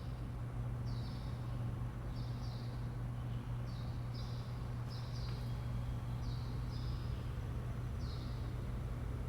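Short high chirps, like a small bird's, repeating roughly once a second over a steady low hum.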